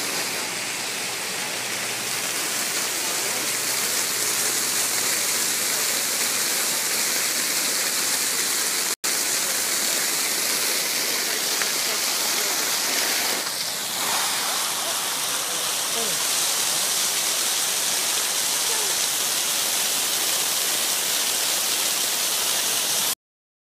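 Fountain water jets spraying up and falling in a dense curtain: a steady, loud rushing splash, with spray landing right on the phone's microphone. There is a momentary dropout about nine seconds in, and the sound cuts off abruptly near the end.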